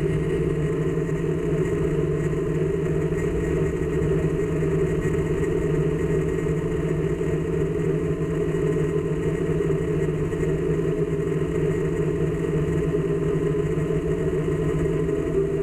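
A steady, unchanging mechanical hum.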